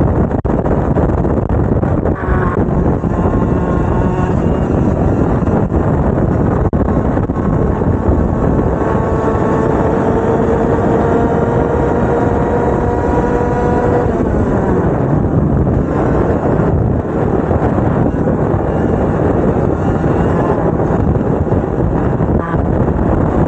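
Two-stroke racing kart engines at speed. One engine's pitch climbs slowly for several seconds under throttle, then drops away about two-thirds of the way through, all over a loud, steady rush of noise.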